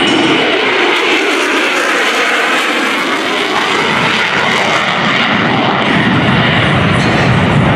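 Navy F-35C Lightning II's Pratt & Whitney F135 afterburning turbofan at high power with the afterburner lit, a loud, continuous rushing jet noise. Slowly sweeping tones run through it, and a deep low rumble builds during the second half as the jet pulls up and away.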